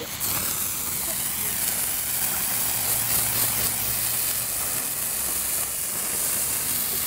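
A lit firework spraying sparks with a steady, loud hiss that starts suddenly just as it catches.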